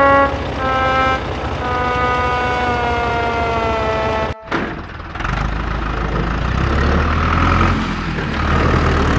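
A vehicle horn sounds in short toots, then one long note that sags slightly in pitch and cuts off abruptly about four seconds in. After a brief gap a low, steady engine rumble runs.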